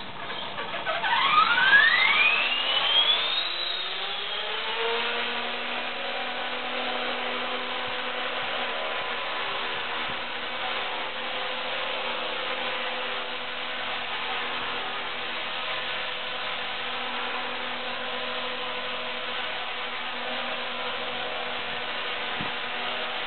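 Esky Honeybee King 2 electric RC helicopter spooling up, its motor whine rising steeply in pitch over the first few seconds. It then hovers with a steady motor whine and rotor noise.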